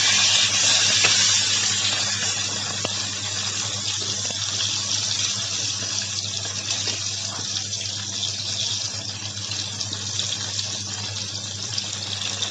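Fish pieces deep-frying in hot oil in a wok: a steady sizzling hiss that eases slightly after the first few seconds.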